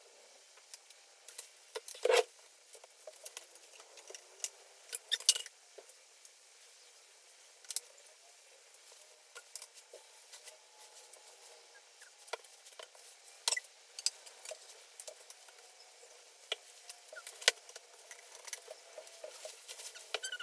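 Scattered small clicks, taps and rustles from handling electronic drum kit rack parts and a paper instruction sheet, with the loudest knocks about 2 and 5 seconds in.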